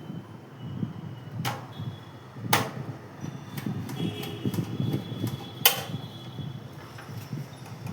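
A few sharp clicks and knocks of hard objects, three of them louder than the rest, over a low rumbling handling noise.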